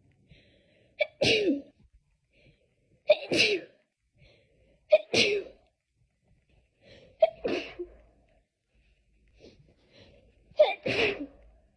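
A person in a sneezing fit: five sneezes two to three seconds apart, each a short sharp catch and then a loud burst that trails off falling in pitch.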